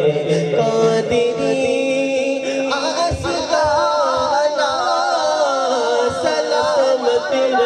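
A man sings an Urdu devotional song solo into a microphone, holding long, wavering, drawn-out notes between the lines of the verse.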